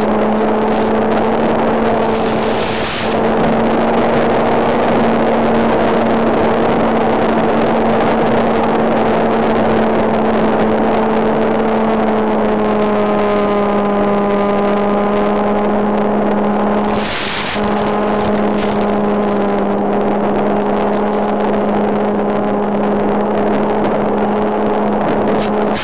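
RC model Spitfire's motor and propeller running at a steady, even pitch in flight over rushing air, with a few short crackles.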